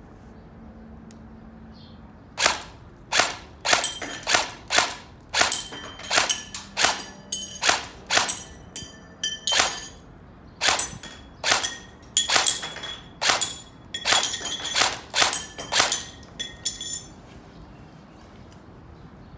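Airsoft M4 rifle firing about thirty single shots at an uneven pace of roughly two a second, each a sharp crack, some followed by a short metallic ring.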